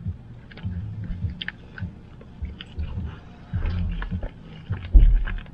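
Close-up chewing of a mouthful of cheese-covered animal-style fries, soft wet mouth sounds with small irregular clicks. A louder low thump comes about five seconds in.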